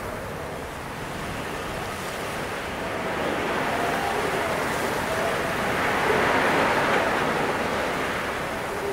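A steady rushing noise that swells louder over several seconds, with a faint wavering whistle in it, and cuts off abruptly at the very end.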